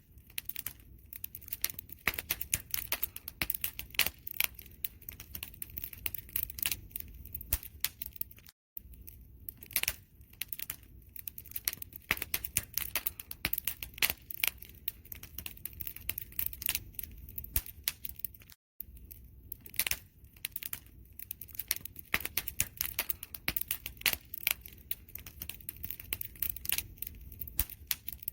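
Wood fire crackling, with dense irregular pops and snaps over a low rumble of flames. The sound cuts out completely for a moment twice, about every ten seconds.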